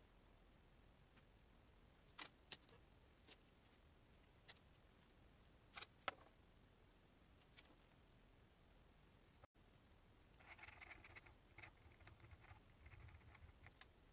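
Faint metallic clicks and jingles as a small star-shaped golf groove sharpener on a ball chain is handled. After about ten seconds comes soft, steady, scratchy scraping as the sharpener's cutter is drawn along the grooves of a steel wedge face.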